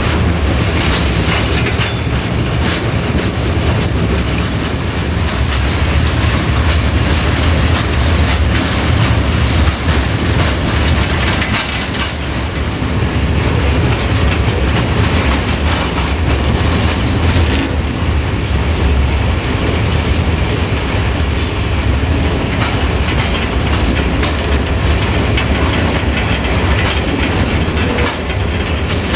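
Ballast train's wagons rolling along the track, wheels clattering steadily over the rail joints.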